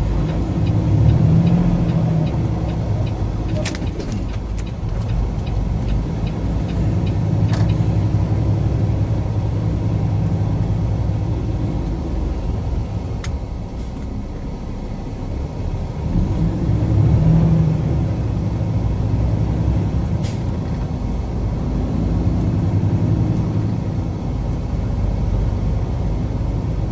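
Semi truck's diesel engine and road noise heard inside the cab. The engine note rises and falls twice, about a second in and again partway through, and there are a few sharp clicks.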